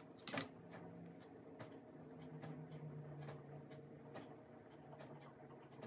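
Faint handling sounds of seasoning being pinched from a small plastic cup and sprinkled by hand: a light click about a third of a second in, then soft scattered ticks over a low steady hum that comes in about two seconds in.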